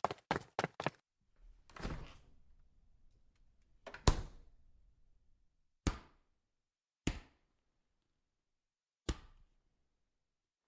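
A rapid run of clicks that stops about a second in, then a handful of separate thuds and knocks spaced one to two seconds apart, the loudest about four seconds in.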